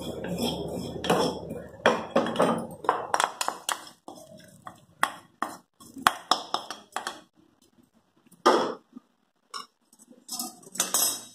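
Steel spatula and ladle clinking and scraping against a small stovetop pan and a pressure cooker as fried coconut tempering is scraped out over the vegetables. Rapid clinks and scrapes over a low rumble that stops about three seconds in, thinning to a couple of separate clatters near the end.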